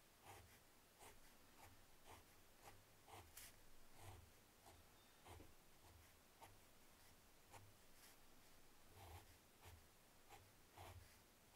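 Fine-tip ink pen scratching on paper in short, quick strokes, about two a second, faint.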